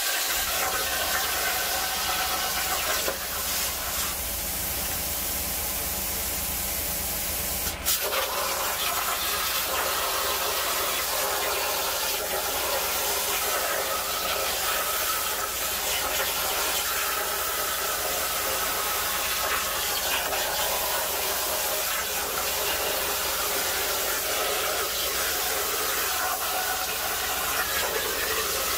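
Jasic Cut 45 air plasma cutter on a CNC table, its arc hissing steadily as it cuts through sheet metal. The sound changes about 3 s in, and a sharp crack just before 8 s marks the arc striking again before the steady cutting hiss returns.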